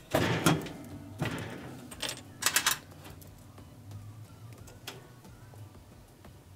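Hands handling the wire connectors of a gas range's surface igniter: a few short scrapes and clicks in the first three seconds as the terminals are worked onto the new igniter, then only faint handling noise.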